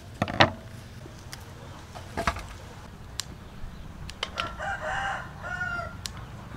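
Kitchen scissors snipping through green onion stalks, a few sharp clicks with the loudest near the start. From about four seconds in, a rooster crows in the background for nearly two seconds.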